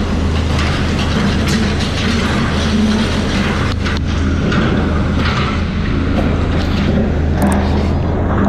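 Motor vehicle engine running steadily with road and traffic noise, a constant low hum under a broad rushing noise.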